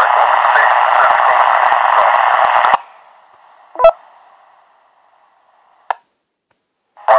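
Two-metre FM repeater audio coming out of a handheld transceiver's speaker: a voice buried in heavy hiss and crackle, the repeater's audio problem, cuts off abruptly about three seconds in. A faint hiss tail follows, with a short beep, then a brief blip, before the squelch closes to silence.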